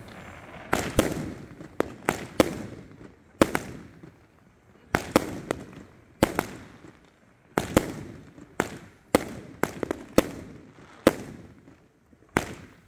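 American Greatness consumer aerial fireworks cake firing: a string of sharp shots and bursts at uneven intervals, about one or two a second with a few short gaps. Each bang trails off in a short echo.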